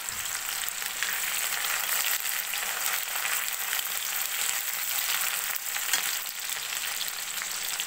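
Finely chopped onions sizzling and crackling steadily in hot mustard oil in a kadhai, with a metal ladle stirring them.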